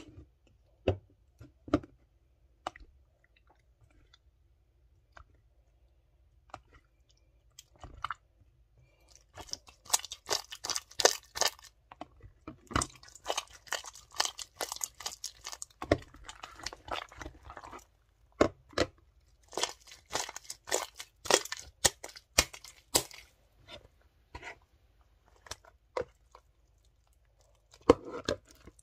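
Clear glue slime being stirred and pulled by hand in a plastic container, making wet, sticky clicking and crackling squelches. A few scattered clicks at first, then three spells of dense crackling through the middle.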